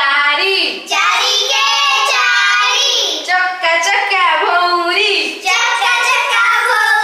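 Girls singing an Odia multiplication-table song in a sing-song melody, in phrases broken by short pauses.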